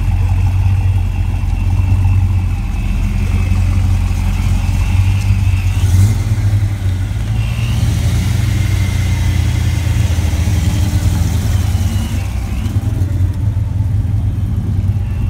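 Car engines idling with a deep, steady rumble, among them a Dodge Charger SRT's V8, with a brief rev about six seconds in.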